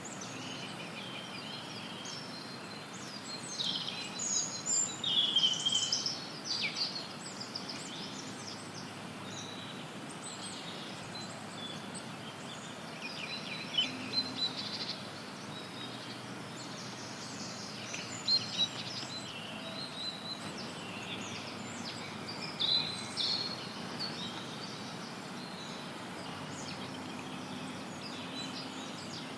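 Songbirds chirping and trilling in a forest over a steady hiss of white noise. The calls come in clusters several seconds apart, the busiest a few seconds in.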